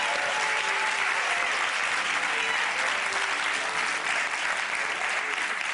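Large studio audience applauding steadily, a dense sustained clapping from many hands.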